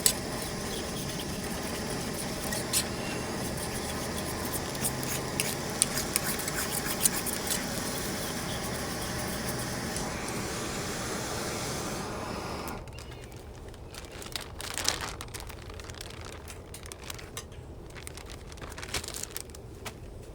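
Food frying in a buttered titanium skillet: steady sizzling with scattered crackles and pops, which drops to a softer sizzle about 13 seconds in.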